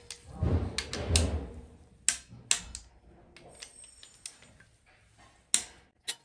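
Socket ratchet clicking as it runs down the camshaft bearing-cap bolts on a diesel cylinder head, a string of separate sharp metal clicks with a few low knocks in the first second and a half.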